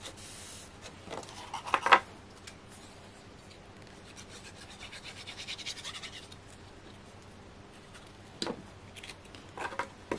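Hands rubbing and smoothing a glued paper panel down onto a card box, with a couple of sharp taps about two seconds in and a quick run of scratchy rubbing strokes around the middle.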